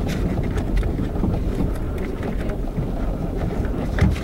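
Motorcycle riding along a road: steady engine and road rumble with wind buffeting the microphone, and scattered short clicks and knocks.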